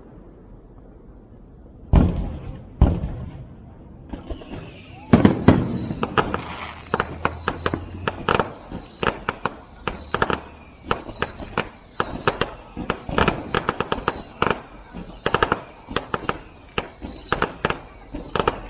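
Aerial fireworks going off: two booms, then a dense run of pops and crackling explosions. Over the crackling, a high falling whistle repeats about once a second.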